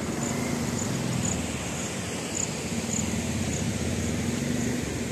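Motorcycle engine idling steadily, over a constant rush of water from the dam's open spillway.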